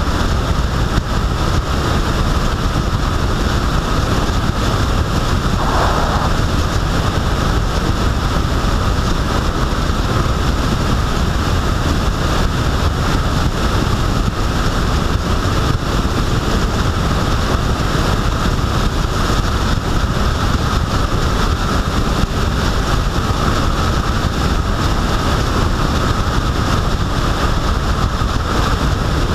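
Steady rush of wind over the microphone mixed with tyre and road noise from a vehicle travelling at road speed.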